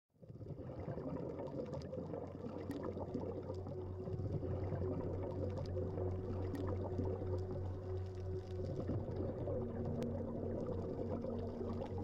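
Ambient relaxation soundtrack: a low watery wash under soft held drone tones, with a few faint clicks.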